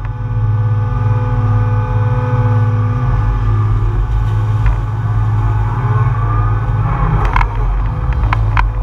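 John Deere 200 excavator's diesel engine running under load as the bucket lifts a clump of mud and roots out of the pond and the machine swings to the spoil pile, with a rising hydraulic whine about six seconds in. A few sharp clanks come near the end.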